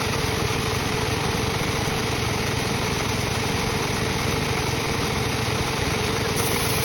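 Sawmill machinery running steadily with a constant engine-like drone and a steady hum.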